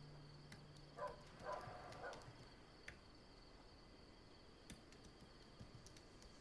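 Near silence: quiet room tone, with the last note of background music dying away in the first second, a few soft rustles a second or two in, and a faint steady high-pitched hum.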